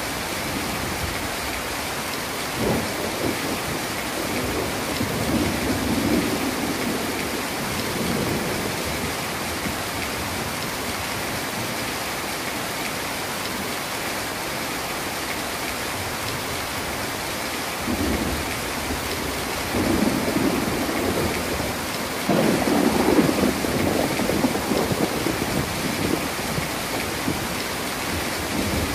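Heavy rain falling steadily, with thunder rumbling: a roll a few seconds in, then longer rolls from a little past halfway to near the end, the loudest about three quarters of the way through.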